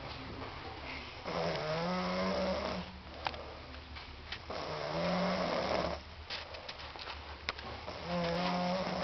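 A woman snoring: three long droning snores, each about a second and a half, coming roughly every three seconds, with quieter breathing between them.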